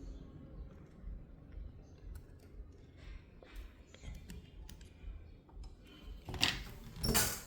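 Faint, scattered clicks and taps of small repair tools working on the screws inside an opened iPad, with two louder, longer handling noises near the end.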